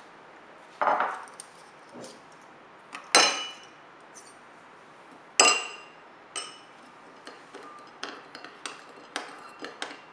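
Metal spoons clinking against ceramic bowls of citrus juice. A few louder clinks that ring as the spoons are set into the bowls, then quicker light taps as a spoon stirs the juice.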